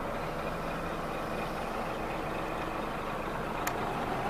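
Scania P 380 truck engine running steadily at idle, heard from inside the cab, with one sharp click near the end.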